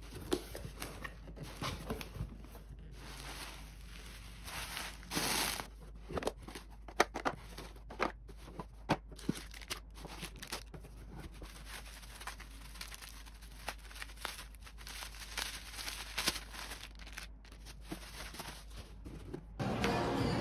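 Scattered small clicks, taps and crinkling, as of objects being handled at close range.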